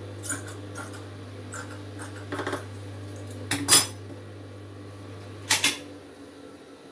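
Small hard objects being handled and set down on a tailoring table beside an industrial sewing machine: a series of light clicks and taps, with the loudest clatter about halfway through and a double knock near the end, over a low steady hum that stops near the end.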